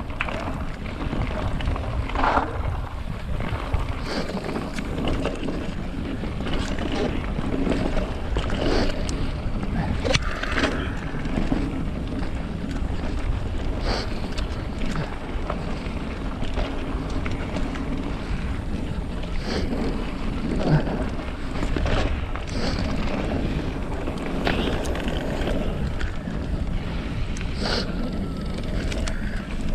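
Mountain bike riding fast down a dry dirt track: wind buffeting the microphone over the steady rumble of tyres on dirt, with scattered knocks and rattles from the bike over bumps and ruts.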